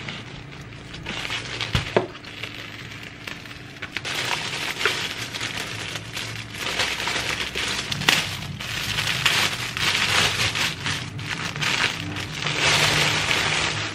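A plastic courier mailer being torn open, then the clear plastic film around the cushion inside crinkling and crackling as it is handled. There are sharp cracks about two and eight seconds in.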